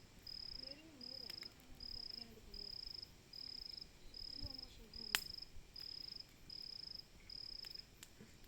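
A cricket chirping steadily at night, high pulsed chirps about three every two seconds, with faint voices murmuring underneath. A single sharp snap stands out about five seconds in.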